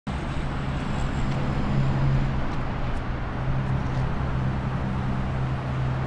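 Road traffic: a vehicle engine droning steadily over continuous tyre and road noise.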